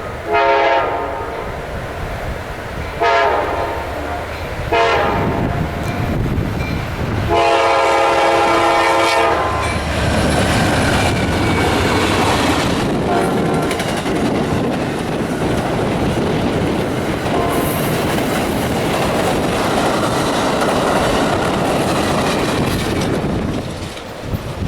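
Locomotive air horn sounding the grade-crossing signal, long, long, short, long, then the train passing close with steady wheel-on-rail clatter.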